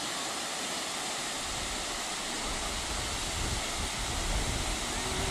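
Steady rush of a large waterfall, with wind buffeting the microphone in low gusts from about a second and a half in.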